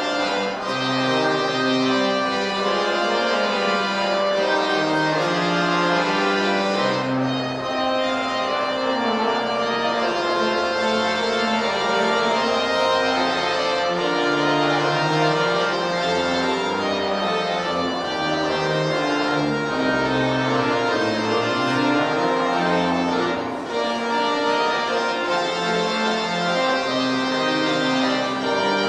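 Church organ playing held chords that move from note to note: the postlude closing the service.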